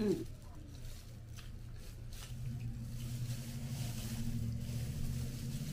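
A short falling vocal sound, then gloved hands digging through a plastic seafood-boil bag, with a few sharp crinkles, over a steady low hum that grows louder from about two seconds in.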